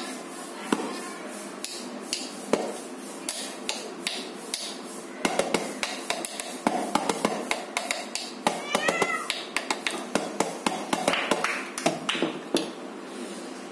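Homemade drum of PVC pipe with a sticky-tape drumhead, struck with a stick: single taps spaced apart at first, then a fast run of strikes from about five seconds in. A brief rising-and-falling cry comes about nine seconds in.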